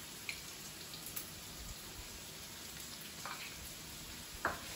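Chopped onions and garlic sizzling gently in hot avocado oil in a frying pan: a quiet steady hiss with a few scattered crackles, one sharper tick near the end.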